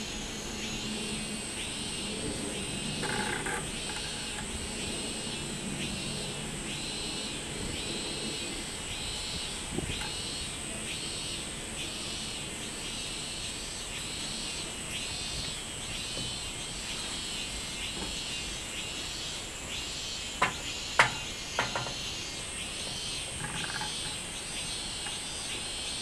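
Robust cicadas (minmin-zemi) calling in their pulsed 'meen-meen' rhythm, about three pulses every two seconds, over a steady high-pitched buzz. A low rumble fades out in the first eight seconds, and a few sharp clicks about twenty seconds in are the loudest sounds.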